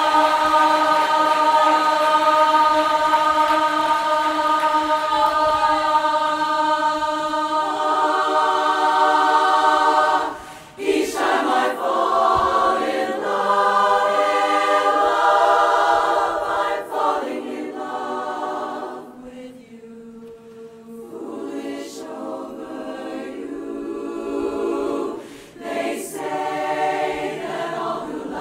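Women's barbershop chorus singing a cappella in close harmony. It opens on long held chords, then moves through shorter phrases, dropping softer for a moment about two-thirds through.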